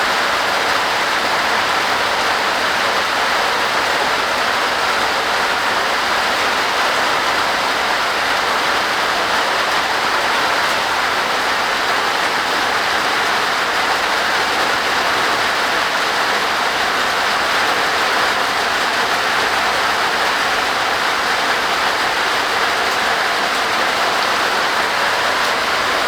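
Heavy rain drumming on a tin porch roof, a dense, steady, loud roar of drops.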